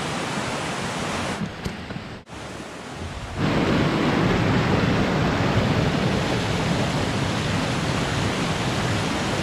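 Forest stream rushing down a small rocky cascade: a steady rush of water that becomes louder about three seconds in.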